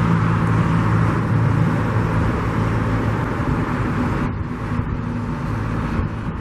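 Rush-hour freeway traffic: a steady rush of tyres and engines with a low engine hum underneath, which eases off a little about four seconds in.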